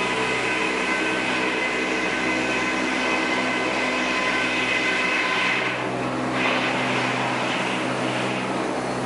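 Sawmill machinery running steadily: a loud, even mechanical drone with several steady hum tones under a dense hiss. The hiss drops away briefly about six seconds in and again near the end.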